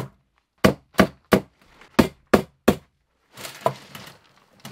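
Hammer blows nailing a metal light-fixture bracket to an overhead wooden floor joist: seven sharp strikes in two quick runs, followed near the end by softer rustling and scraping as the bracket is handled.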